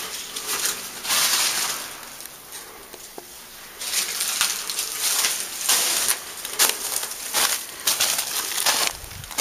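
Footsteps on a thin layer of snow over dry fallen leaves. They settle into a steady walking pace of about two steps a second from about four seconds in, after a quieter stretch.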